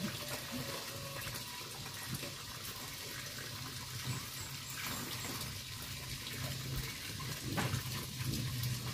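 Steady sound of running water in the background.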